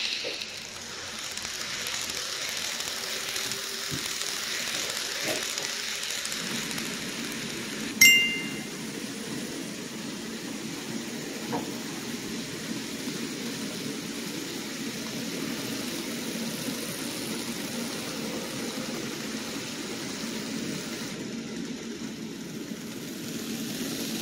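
N-gauge model trains running on the layout: a steady hiss with a steady low rumble of wheels rolling on track that sets in about six seconds in. A short bright chime sound effect rings once about eight seconds in.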